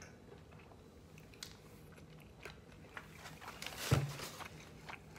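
A person chewing a mouthful of burger, with small wet mouth clicks. Just before four seconds in, a thump with a rustle of the burger's paper wrapper as it is handled close to the microphone.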